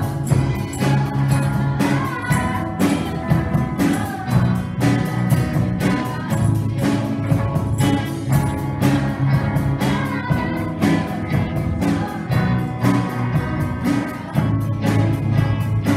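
A children's rock band playing live, with a drum kit keeping a steady beat under electric guitar, bass guitar and strummed acoustic guitars.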